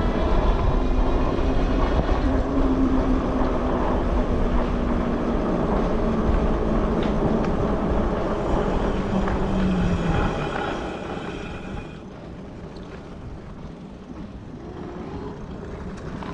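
Wind rushing on the camera microphone and tyre noise from a Sondors Fold X electric bike riding on asphalt, with the hub motor's steady whine. About ten seconds in, the whine sinks in pitch and stops and the wind noise falls away as the bike slows.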